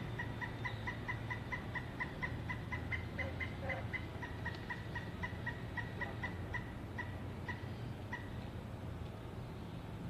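Pileated woodpecker giving its long call: a series of short, even notes, about three a second, spaced wider near the end and stopping about eight seconds in. A steady low rumble lies underneath.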